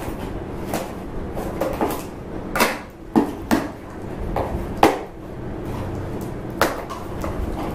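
Scissors snipping through packing tape on a cardboard shipping box, then the taped cardboard flaps being torn and pulled open: a string of sharp cracks, snips and knocks, the loudest few around the middle.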